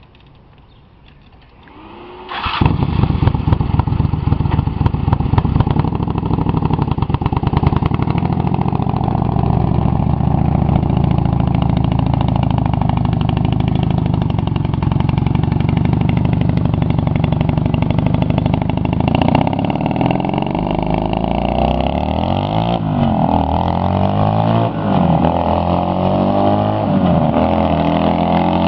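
Engine of a rat-rod golf cart started about two seconds in, then running loud and steady as the cart drives off; later its pitch rises and falls repeatedly as the throttle is worked.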